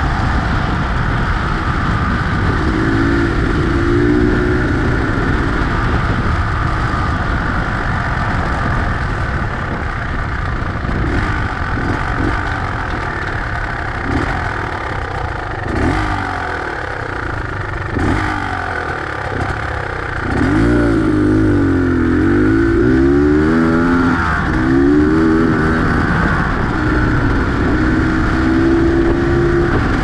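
Beta X-Trainer 250 two-stroke enduro motorcycle running on the move, its engine rising and falling in pitch as the throttle opens and closes, with several revving sweeps in the second half. A few short knocks come in the middle.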